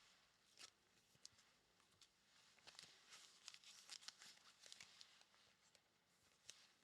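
Faint crinkling and tearing of plastic packaging with scattered light clicks, busiest in the middle, from trading card packs and supplies being handled.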